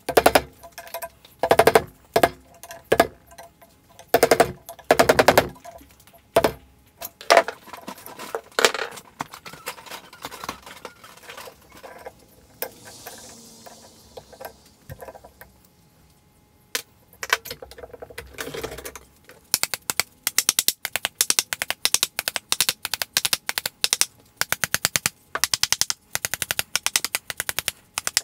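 Hammer blows on a steel punch driving the old handle wood out of the eye of a tomahawk head clamped in a vise, metal striking metal. The first strikes are spaced and uneven, with a faint ring after them. About two-thirds of the way through they turn into a fast, even run of taps.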